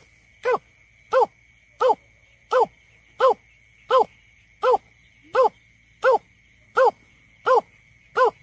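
Greater painted-snipe calling: a steady series of short, low hooting notes with an even pace of about one every 0.7 seconds, the advertising call typically given by the female.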